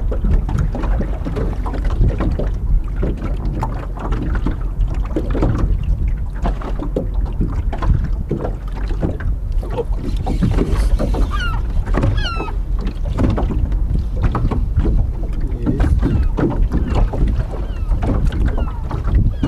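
Wind buffeting the microphone over water lapping and knocking against a small boat's hull. A few short high chirps sound about halfway through.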